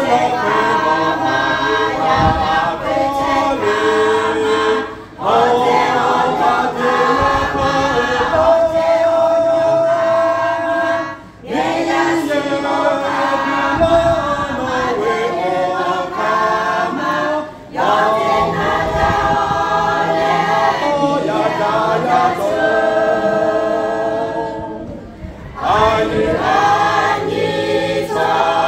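Small mixed choir, mostly women's voices with a man's, singing a hymn unaccompanied. The phrases break off briefly for breath about every six seconds.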